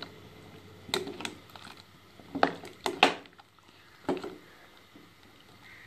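A ladle knocking and clinking against the sides of a steel cooking pot as turnip slices are stirred in water: about six separate, uneven knocks.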